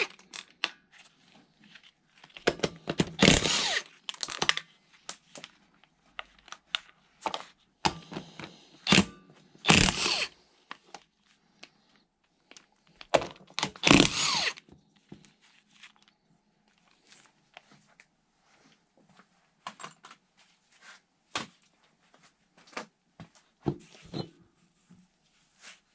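Wheel-removal tool work on an ATV's wheel nuts: four loud bursts, each about a second long, in the first half, then scattered clicks and knocks of metal parts being handled.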